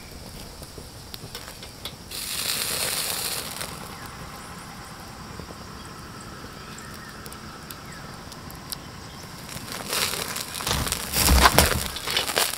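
Wood fire crackling under a wire grill basket of meat, with a patch of hissing about two seconds in. Near the end, a louder run of knocks and rattles with low thumps.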